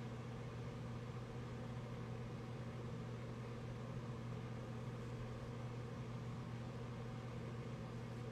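Steady low electrical hum with a faint hiss behind it, unchanging throughout.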